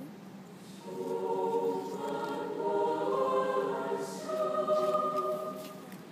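A school choir singing a held phrase, entering about a second in and fading away near the end.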